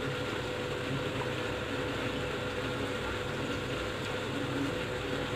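Steady background hum and hiss of room noise with a faint constant tone; the soft tearing of bread by hand does not stand out from it.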